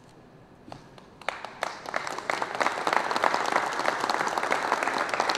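Audience applauding, starting about a second in and building up steadily.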